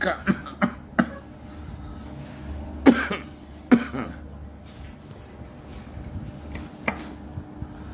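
A person coughing a few short times; the loudest coughs come about three seconds in and again just under a second later, with a faint one near the end, over a low steady room hum.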